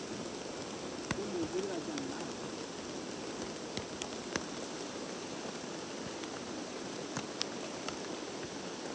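Steady rain falling, an even hiss with scattered sharp drops ticking through it.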